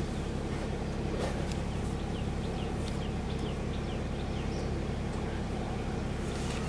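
A houseboat's engine running steadily as the boat cruises, a constant low hum. Birds chirp in short falling notes over it, several in the middle stretch.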